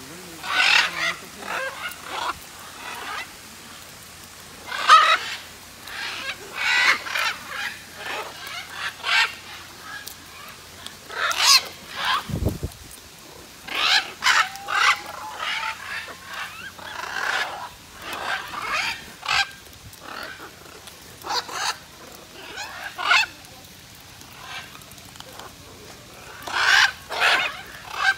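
A flock of macaws, blue-and-yellow and green-winged, squawking: many short, harsh, raucous calls in irregular bursts, several birds calling over one another.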